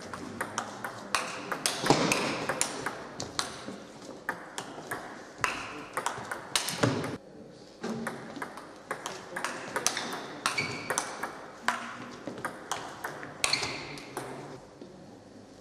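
Table tennis rally: the ball clicking off the players' rackets and the tabletop in quick, irregular succession.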